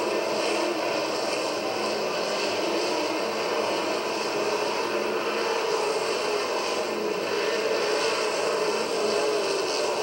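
A pack of winged sprintcars' V8 engines running flat out around a dirt oval, one continuous blended engine noise. The sound is muffled and low-fidelity, as from an old VHS tape.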